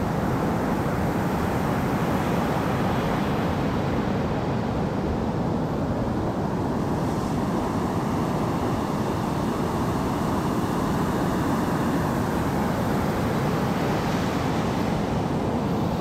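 Steady wash of ocean water and waves, a low, even rushing noise, brightening faintly about seven seconds in and again near the end.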